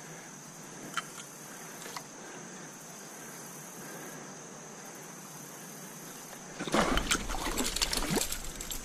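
Steady rush of a small trout stream running over a shallow riffle, with two faint clicks about one and two seconds in. Near the end, a much louder burst of splashing and rough rumbling as a hooked trout thrashes at the surface.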